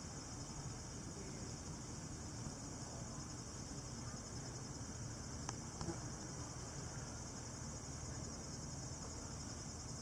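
Steady high-pitched chorus of crickets trilling without a break, typical of late-season insect song.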